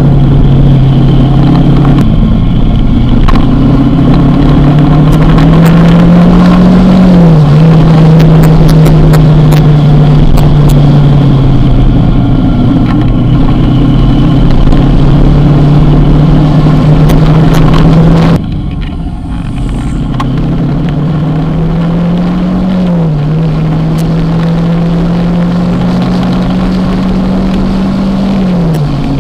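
Kawasaki motorcycle engine running on the road, its pitch climbing slowly and then dropping sharply at each upshift, three times. A constant low rumble runs under it, and the sound steps down a little about two-thirds of the way through.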